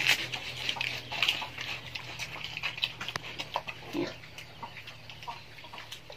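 Pigs, a wild boar among them, feeding on scraps on the ground: many short crunching and chewing clicks, with a short grunt about four seconds in.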